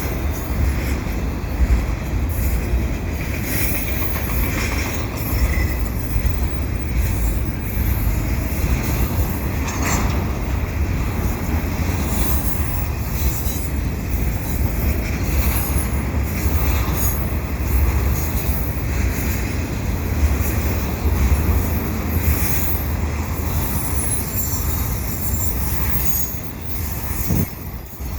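CN double-stack intermodal freight train passing at speed: a continuous heavy rumble of wheels on rail, with high-pitched wheel squeal flickering in and out.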